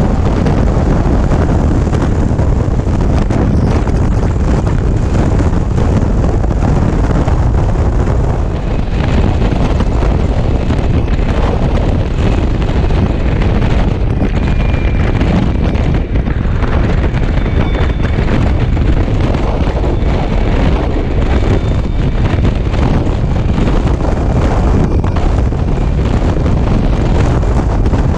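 Loud, steady wind rush buffeting the microphone while riding a BMW C-Evolution electric scooter at highway speed, with road and traffic noise underneath and no engine or exhaust sound. Faint high steady tones come and go from about a third of the way in.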